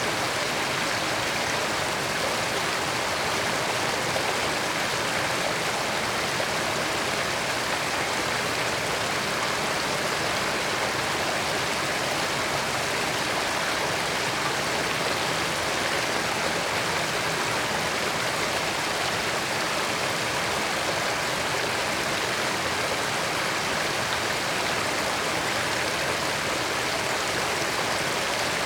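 A creek flowing steadily over rocks, a continuous even rush of water that does not change.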